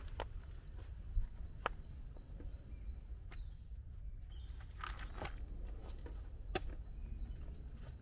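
Scattered sharp cracks and knocks of wood being handled in a forest, about half a dozen over the stretch with a quick cluster near the middle, over a steady low rumble.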